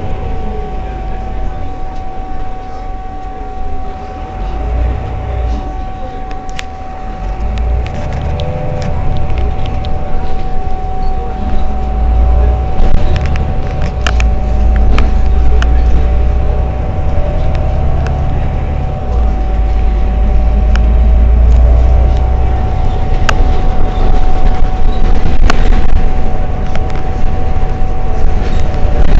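Heuliez GX 327 city bus idling at a stop: a steady low engine rumble with a constant high whine over it, growing louder in the second half, with a few faint clicks.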